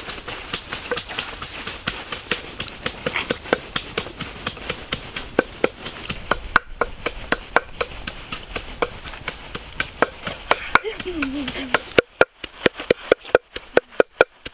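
Wooden pestle pounding red chillies in a wooden mortar: a steady run of knocks, a few a second, sharper and more spaced out near the end.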